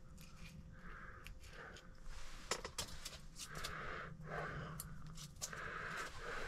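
A man's stuffy breathing in and out through the nose, in pairs of short hissy breaths every couple of seconds, as from someone with a cold. Small sharp clicks of metal forceps and tackle being handled come in between.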